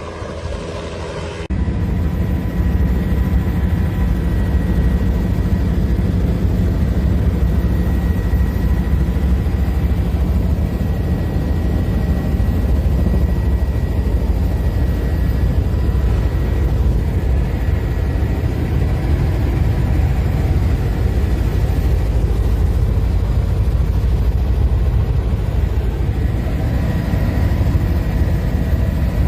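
Helicopter running close by as a loud, steady, deep rumble; it jumps suddenly louder about a second and a half in and then holds steady.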